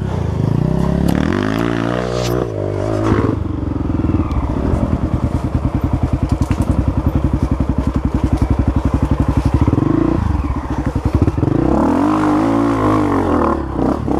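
Honda CRF 250F dirt bike's single-cylinder four-stroke engine, ridden at low speed. The revs rise and fall in the first few seconds and again about ten seconds in, with a steady, pulsing run in between.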